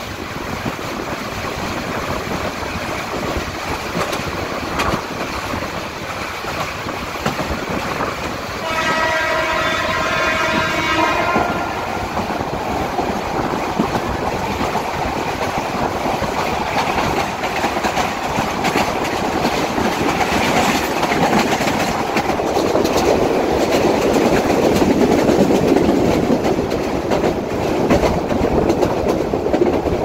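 A train running on the track, with one horn blast of about three seconds starting about nine seconds in. The running noise of the train grows louder in the second half.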